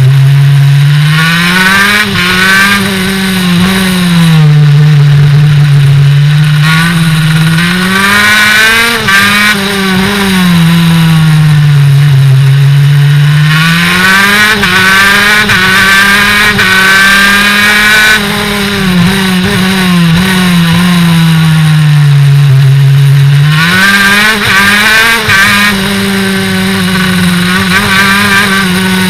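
Go-kart engine heard onboard while lapping a track, loud throughout. Its pitch climbs on the straights, holds, then drops as the driver lifts for the corners, several times over.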